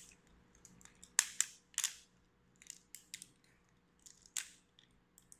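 Ratchet joints of an Icarus Toys Getter Arc die-cast action figure clicking as its arms and legs are posed: a string of sharp, irregular clicks.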